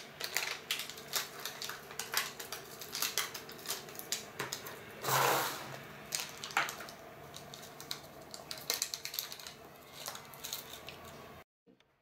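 Crinkling and rustling of a foil supplement sachet and its plastic pouch being handled, with many small crackles and a short tearing sound about five seconds in as the sachet is ripped open. The sound cuts off suddenly near the end.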